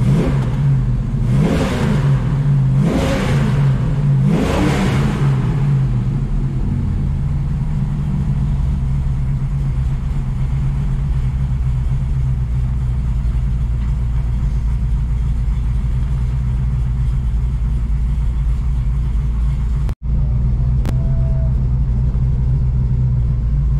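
Mopar 440 big-block V8 running in a new camshaft, heard from inside the car's cabin: three quick revs in the first five seconds, then running steadily. The sound cuts out for an instant near the end.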